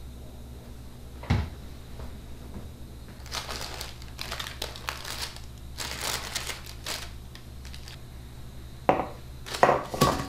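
Baking parchment crinkling and rustling as a freshly baked cake is lifted from its round metal tin. There is a single knock about a second in, and a few louder knocks near the end as the tins and cake are handled.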